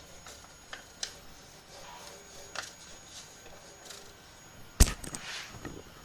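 Scattered light clicks and taps of hands working on a 3D printer while levelling its bed, with one sharp, loud click a little before the end.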